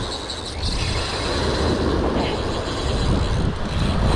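Wind buffeting the microphone on an open beach, a heavy low rumble over the wash of the surf, with a faint steady high-pitched whine running underneath.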